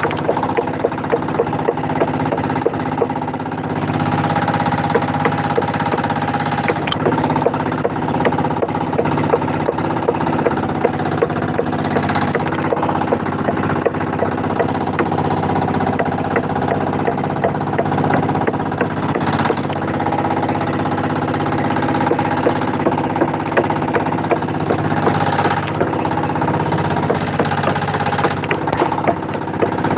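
Small engine of an outrigger fishing boat running steadily under way, with a fast, regular knocking beat.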